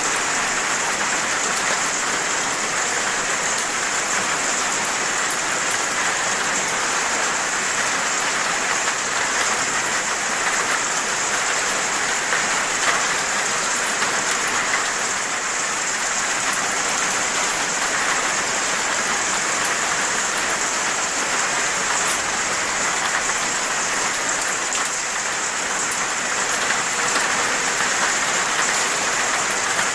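Steady heavy rain: a dense, even hiss of falling rain with fine drop ticks, holding the same level throughout.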